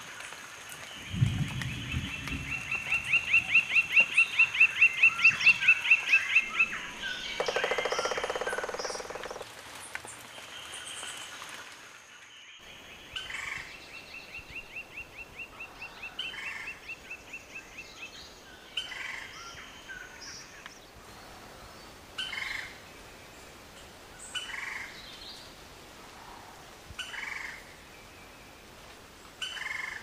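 Lineated woodpecker giving its laughing call, a long fast series of high notes that grows louder over about five seconds, then a lower, harsher call. A second, fainter series follows, then scattered single call notes every few seconds.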